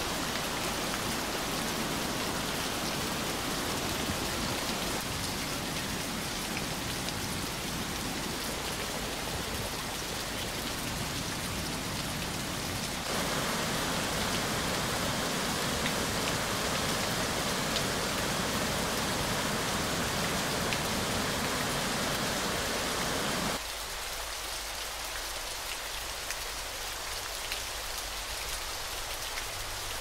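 Rushing water of a river waterfall and rapids, a steady even hiss. It steps up louder abruptly about halfway through, then drops abruptly to a quieter, thinner rush about three-quarters of the way through.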